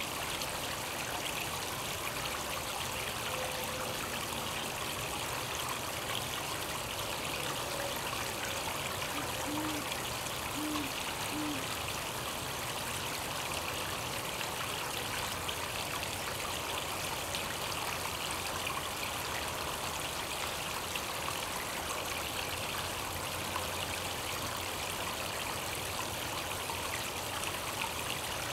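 Great horned owl hooting: a short series of three low hoots about ten seconds in, over the steady rush of a backyard swimming pool's waterfall.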